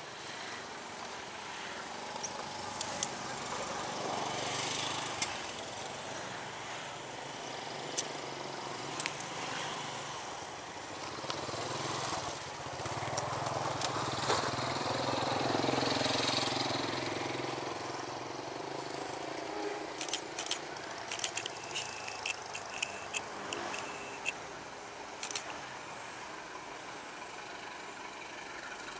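CC 201 (GE U18C) diesel-electric locomotive running as it approaches at low speed, its engine hum swelling to loudest about halfway through. In the last third, a run of sharp clicks and short high squeaks comes from the wheels crossing the points and curving track.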